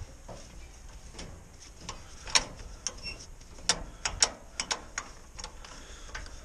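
Irregular sharp metallic clicks and clinks as the fittings of an Ursus tractor's three-point hitch and a Batyra seedbed cultivator are handled by hand, with a small cluster of clicks in the middle.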